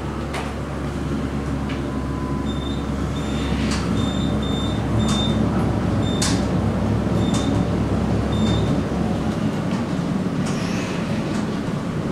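Otis high-speed traction elevator car in travel: a steady low rumble and hum of the ride, louder in the middle, with its deepest hum dropping away about three-quarters through. Short high beeps repeat irregularly, about twice a second, for several seconds in the middle, with a few light clicks.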